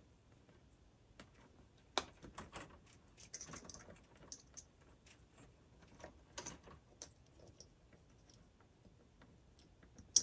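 Scattered faint clicks and plastic rattles of insulated crimp spade connectors being pushed together and wires handled, the loudest click near the end as a connector snaps home.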